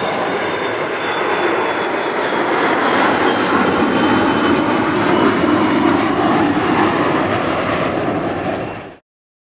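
Boeing 757-200 airliner's jet engines at takeoff thrust as it rotates, lifts off and climbs away: a loud, steady roar that swells slightly about a second in. The sound cuts off suddenly near the end.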